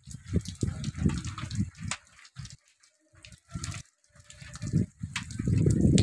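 Rain with water dripping in sharp scattered drops, over irregular low gusts of wind buffeting the microphone.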